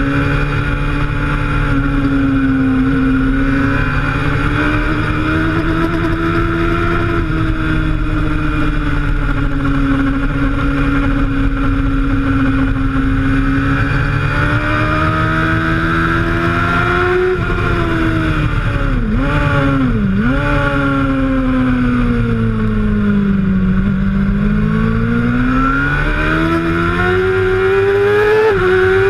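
Suzuki GSX-R750 K1's inline-four engine running hard on track over wind rush, heard from the onboard camera. The engine note holds fairly steady, dips sharply twice about two-thirds of the way through, sags, then climbs steadily near the end as the bike accelerates.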